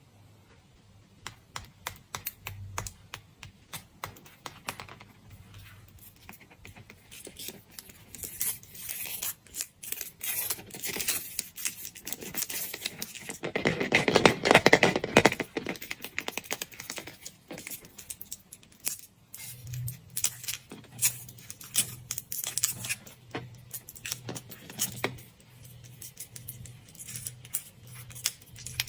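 Chocolate eggs being unwrapped by hand: foil and plastic wrappers crinkling and rustling, with many small clicks and taps. The crinkling is loudest and densest about halfway through.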